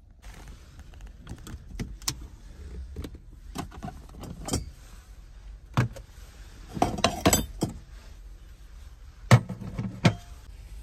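Cookware being handled and taken from a storage shelf: scattered knocks and metal clinks, a burst of clattering about seven seconds in, and two sharp knocks near the end.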